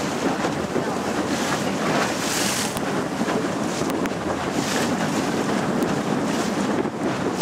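Small motor boat under way on choppy water: wind buffeting the microphone over the rush and splash of water against the hull, with hiss surging every second or two.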